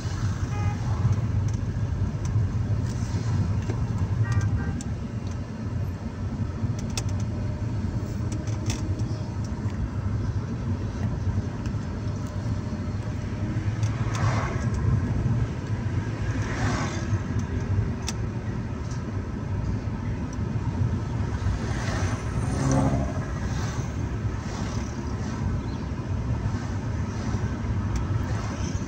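Steady engine and road noise heard from inside a moving car, with a few passing vehicles swishing by, about halfway through and again near two-thirds of the way.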